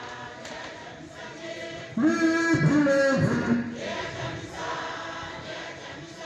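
Rally crowd singing or chanting in unison, with one louder, clearer voice leading for a second or so about two seconds in.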